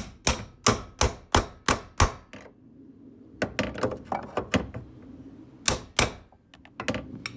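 A breaker bar tapping a hinge bushing into a Fox-body Mustang's door hinge: a quick run of sharp metal taps, about three a second, for the first two seconds, then lighter scattered taps and clicks and two more hard strikes near the end.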